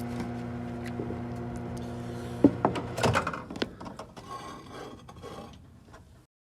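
A steady electrical hum stops about halfway through. A few sharp knocks and the clatter of containers and tools being handled follow, fading out before the sound cuts off abruptly.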